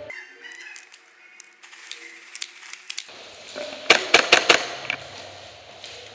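Airsoft gunfire: scattered sharp snaps for the first few seconds, then a quick string of about half a dozen loud cracks about four seconds in.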